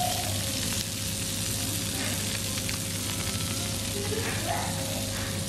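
Freshly baked Detroit-style pizza sizzling steadily in its hot pan just out of the oven.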